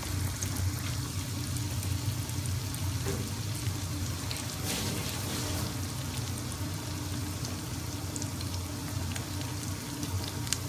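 Battered chicken nuggets deep-frying in the oil of a commercial fryer: a steady bubbling sizzle dotted with small crackles.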